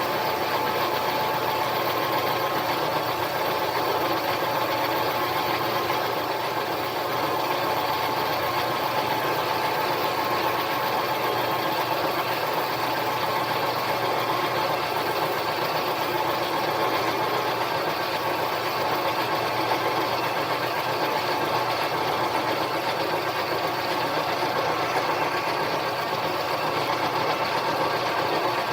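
Harbor Freight mini lathe running steadily at a constant speed, an even mechanical hum and whir with no pauses.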